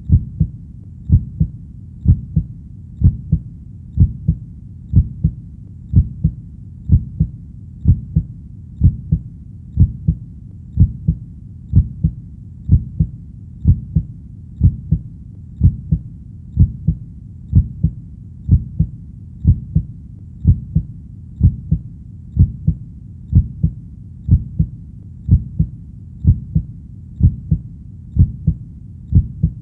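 A heartbeat beating steadily: a low double beat (lub-dub) about once a second, around 60 beats a minute.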